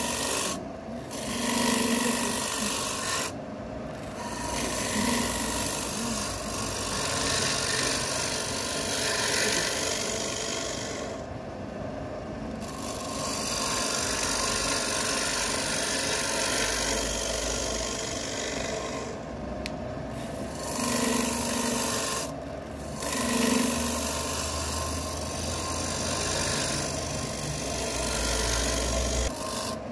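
Woodworking tool scraping against wood, most likely a turning tool cutting wood spinning on a woodturning lathe. It runs as a steady scraping noise, broken by about five short pauses.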